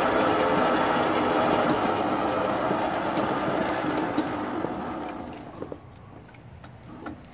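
Riding mower rolling over dry leaves and grass while being towed, its tyres crunching and its frame rattling. The noise dies down about five seconds in as the mower slows to a stop.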